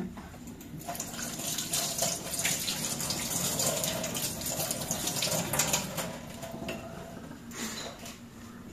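Kitchen tap running into the sink, with a few small knocks against the basin; the water thins out near the end.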